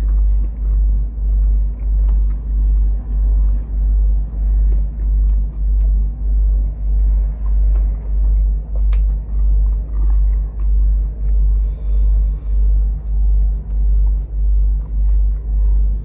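Loud low rumble that pulses about three times every two seconds, with faint chewing of a toasted bagel and a few small mouth clicks over it.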